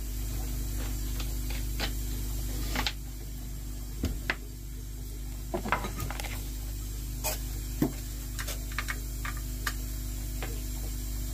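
Scattered light clicks, taps and knocks of hands working on a Charles Austen diaphragm air pump to change its diaphragm, over a steady low electric hum. A faint hiss thins out about three seconds in.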